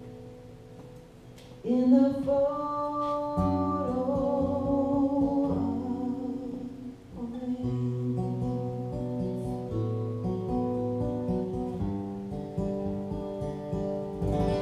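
A woman singing a slow song to acoustic guitars, strummed and picked. Guitar chords ring out alone at first, and her voice comes in about two seconds in.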